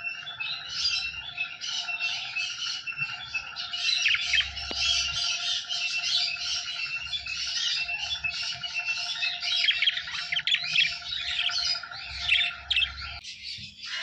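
Budgerigars chattering and warbling: a dense, unbroken stream of quick high chirps and squawks. A steady high hum runs underneath and cuts off suddenly near the end.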